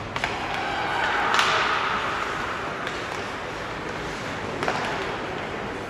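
Ice hockey play in a rink: a sharp stick-on-puck clack at the faceoff just after the start, then a swelling wash of skate blades scraping the ice mixed with spectators' voices. Another sharp stick tap comes near the end.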